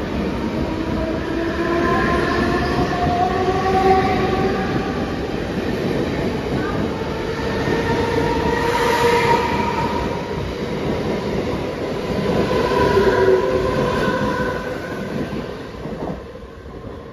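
Mumbai suburban local electric multiple-unit train running along the platform, its electric traction motors whining over the rumble of wheels on rail. The whine rises in pitch over the first few seconds as the train gathers speed, and the sound fades near the end.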